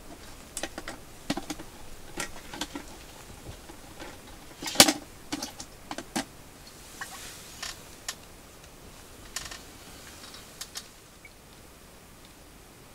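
Scattered small clicks, taps and rustles of hands handling ice-fishing tackle and a plastic container, with one louder clack a little under five seconds in; the handling dies down near the end.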